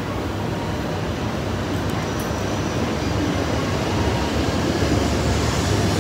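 Tohoku Shinkansen E5-series bullet train pulling out past the platform at close range: a steady rush of running noise over a low rumble, growing slowly louder as it picks up speed.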